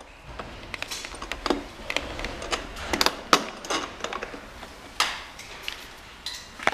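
Irregular clicks and light knocks of hard plastic scooter parts and a metal bolt being handled as the bolt is pushed through the handlebar joint of a plastic children's ride-on scooter.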